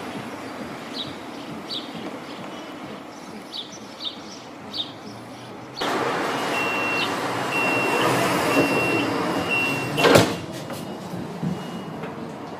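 Siemens Combino NF8 tram at a stop: a louder rush of noise starts about six seconds in, with a series of short, high, evenly spaced warning beeps as the doors close. The sliding doors shut with one sharp knock about ten seconds in, after which the beeps carry on faintly.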